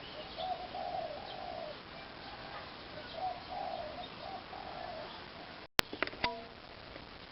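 A dove cooing, a run of low repeated coos over a steady background hiss, followed by a short dropout and a sharp click near the end.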